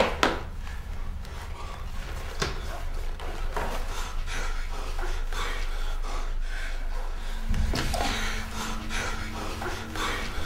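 A person breathing heavily in short, ragged breaths, over a low steady hum. A sharp hit sounds right at the start, and a higher steady tone joins the hum about seven seconds in.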